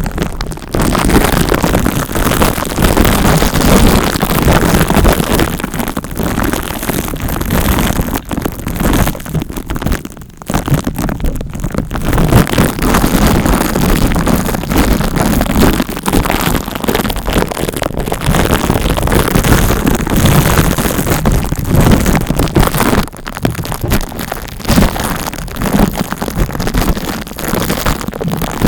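Close-miked ASMR scratching and rubbing right on the microphone, a dense crackling noise that swells and dips unevenly, with brief lulls around ten seconds in and again near twenty-three seconds.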